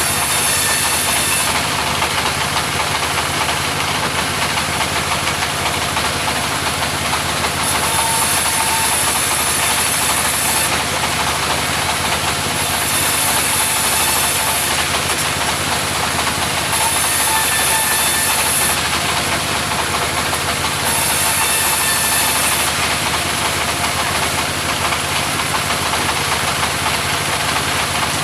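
Mobile sawmill running steadily, its engine going throughout while the saw cuts timber: a higher-pitched sawing sound rises over the engine five times, each lasting a couple of seconds.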